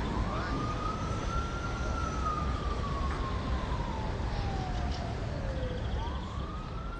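Emergency vehicle siren wailing: a quick rise, then a long slow fall in pitch, rising again near the end, over the low rumble of city traffic.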